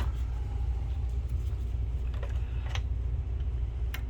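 Steady low background hum with a few faint, separate clicks and taps as parts inside an opened projector are handled.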